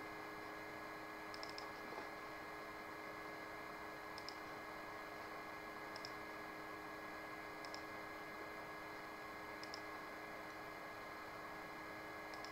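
Faint computer mouse clicks, single or paired, every couple of seconds, over a steady hum.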